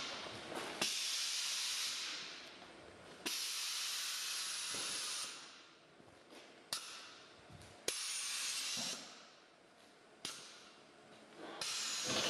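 Air suspension on a Mazda estate venting air from its rear air bags in about five short hissing bursts as the rear is lowered. Each burst starts suddenly with a valve click and fades away, and a faint falling whistle runs through two of them.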